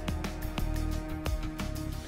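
Background music with a low bass line and regular note attacks.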